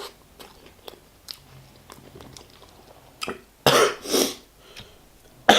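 Faint mouth clicks of chewing, then a man coughs: one short cough followed by two loud ones a little past halfway through.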